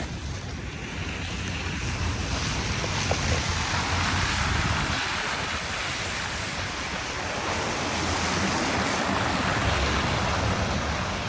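Wind gusting against the microphone: a steady rushing noise with a low rumble, swelling and easing.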